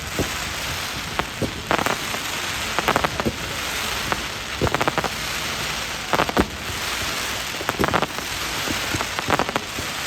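Fireworks display: a steady crackling hiss like rain, with clusters of sharp cracks and pops about every second and a half.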